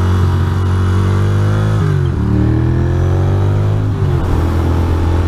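Ducati Monster's V-twin engine accelerating, its pitch climbing through the gears with two upshifts, about two and four seconds in.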